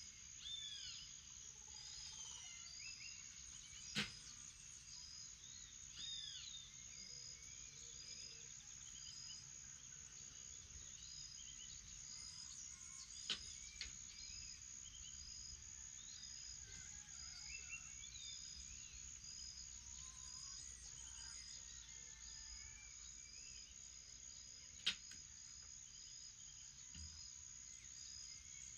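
Morning bird and insect chorus: a steady high-pitched insect drone, with a short high chirp repeating about once a second and scattered bird calls over it. Three sharp clicks stand out, about four seconds in, near the middle, and a few seconds before the end.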